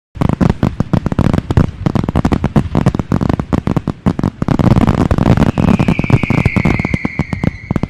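Fireworks going off in a dense barrage of rapid bangs and crackles, starting suddenly. In the second half a high whistle sounds over them, falling slightly in pitch.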